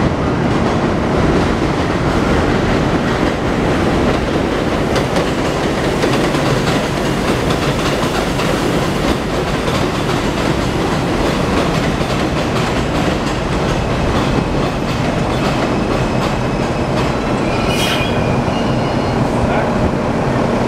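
R142 subway train running along an elevated steel structure as it arrives: a loud, steady rumble with wheels clacking over the rail joints. A brief high-pitched wheel squeal comes near the end.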